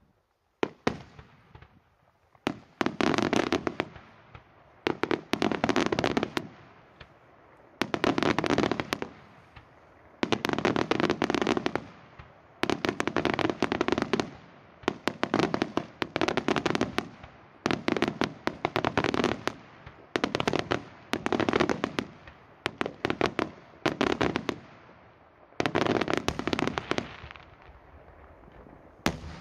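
Daytime aerial fireworks bursting overhead: volleys of rapid, crackling bangs, one dense cluster roughly every two to three seconds, about a dozen in all.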